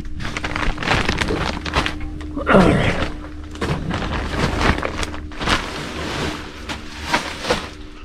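Plastic vapor-barrier sheeting crinkling and rustling as a person crawls over it on hands and knees, with irregular knocks and shuffles of the body and gear.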